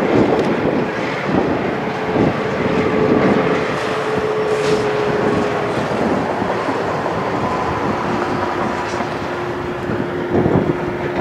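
MLW MX627 diesel locomotive working as it hauls a freight train past, its ALCO 251 engine running steadily; the engine note drops in pitch after the middle as the locomotive goes by.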